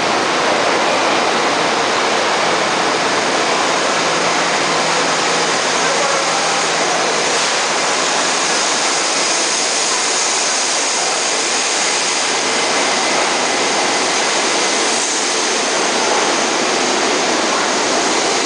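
R68 subway train pulling into the station and running along the platform: a steady, even rushing noise of wheels on rail. A faint high squeal comes in about seven seconds in, as the train enters the platform.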